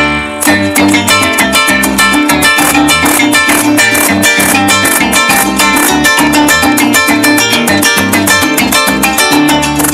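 Loud Latin-style music, led by a plucked guitar over a steady bass-heavy beat.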